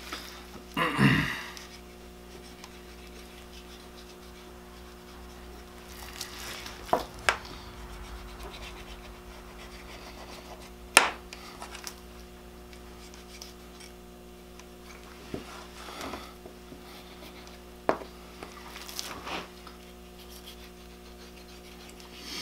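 A knife scraping and cutting connective tissue from around the hock joint of a white-tailed deer's hind leg. There are intermittent short scrapes and a handful of sharp knocks, the loudest about eleven seconds in, over a steady low hum.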